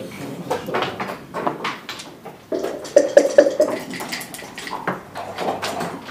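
Backgammon checkers clicking and clacking as they are picked up and set down on the board, with a louder run of rattling knocks about halfway through.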